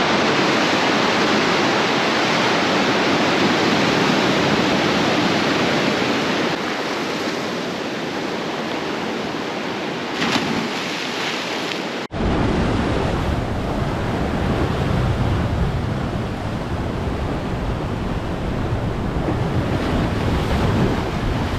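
Sea surf surging and breaking against volcanic rocks, with a short splash about ten seconds in. After a cut about twelve seconds in, wind rumbles on the microphone under the surf.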